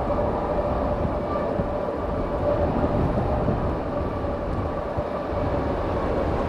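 Boeing 737 MAX 8's CFM LEAP-1B turbofan engines running at taxi power, a steady engine whine over an uneven low rumble of strong wind buffeting the microphone.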